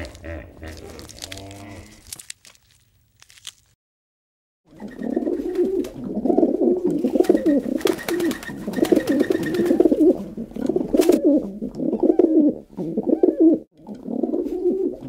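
Birds cooing: a dense run of low, warbling coos that starts about five seconds in, after a short silence, and goes on without a break.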